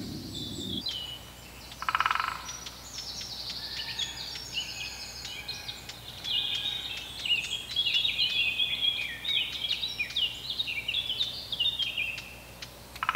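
Morning chorus of songbirds: many birds singing and chirping over one another in short, quick whistled phrases, with a brief rattling call about two seconds in and again near the end.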